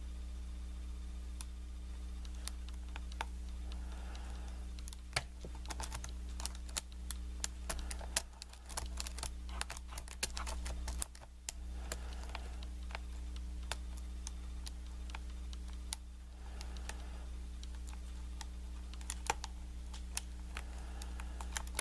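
Kwikset knob cylinder being picked with a lock pick and tension wrench: irregular small metallic clicks and ticks as pins are lifted and set, busiest in the middle stretch.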